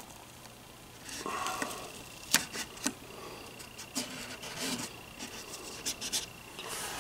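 Strips of blue painter's tape being handled and pressed down onto a wooden radio cabinet: rubbing and rustling, with a few sharp clicks, two close together about two and a half seconds in.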